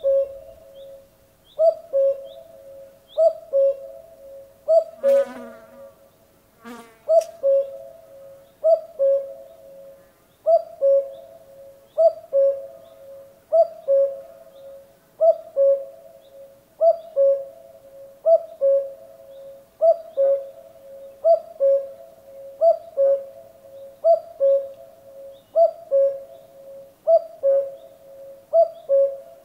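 Male common cuckoo calling its two-note "cuck-oo", a higher note falling to a lower one, repeated steadily about every second and a half. Twice, about five and seven seconds in, a short rasping sound cuts in between calls.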